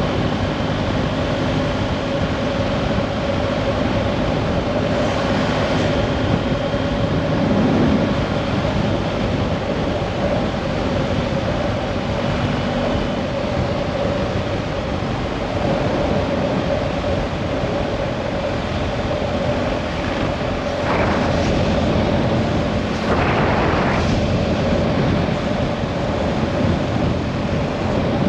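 A motor drones steadily under loud rushing, rumbling noise, with a few brief louder surges of noise.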